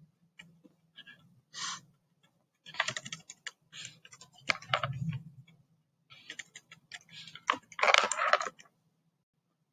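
Typing on a computer keyboard: irregular bursts of keystrokes with short pauses between them. The busiest, loudest burst comes near the end, and then the typing stops.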